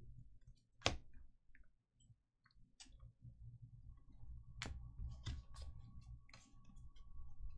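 A few scattered sharp clicks and taps, the loudest about a second in, over a faint low hum. A faint steady high tone comes in about four seconds in.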